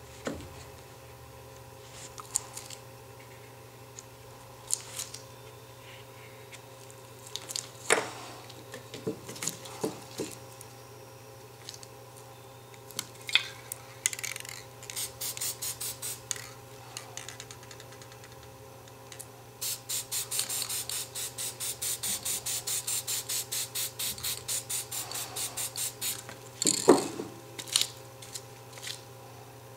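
Aerosol spray paint can sprayed in short hisses, then in a fast run of quick, even bursts lasting about six seconds, with a few sharp knocks between, the loudest near the end.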